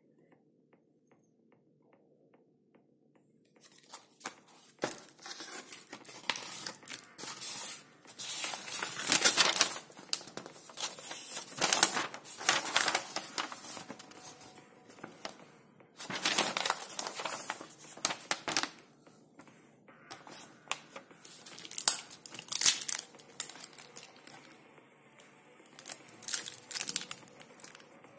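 Paper and card packaging being opened and handled: crinkling and rustling in irregular bursts, starting a few seconds in after a quiet stretch.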